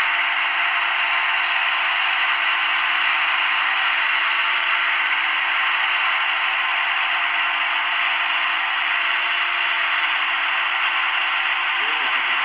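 CNC lathe simulator's machining sound effect: a steady whirring hiss, unchanged in level, as the simulated lathe runs its G71 roughing cycle.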